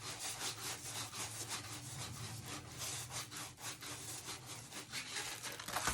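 A stiff diamond painting canvas handled and rubbed by hand: a quick run of dry scraping, rubbing strokes.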